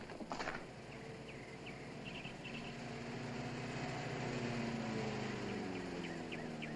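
Engine of a 1950s Chevrolet pickup truck approaching and growing louder, then its pitch falling as it slows and pulls in. Short high chirps sound in the background.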